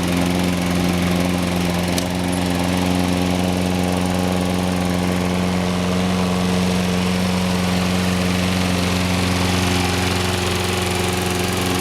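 Toro 22-inch Recycler Personal Pace lawn mower's 6.75 HP Briggs & Stratton single-cylinder four-stroke engine running steadily at a constant speed.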